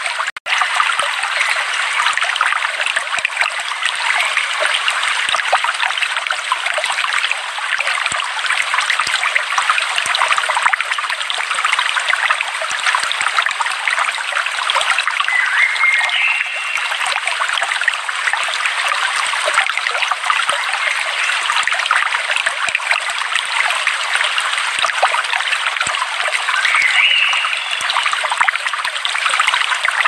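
A shallow stream running over rocks, with a steady babbling rush of water. A couple of brief birdlike calls rise over it about halfway and near the end. The sound drops out for an instant just after the start.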